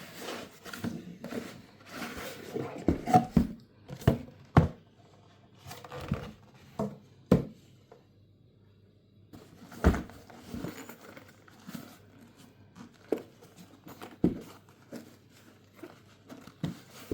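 Objects being handled: irregular knocks and clicks with some crinkling and rustling between them, and a brief pause about eight seconds in.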